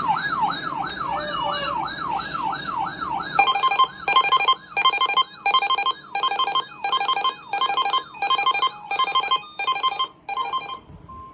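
A Uniden BC370CRS scanner sounds its weather alert. For the first few seconds it gives a wailing, siren-like electronic tone that sweeps up and down about twice a second. From about three seconds in, rapid two-tone beeps repeat about one and a half times a second over the wail, and a single steady alert tone begins near the end.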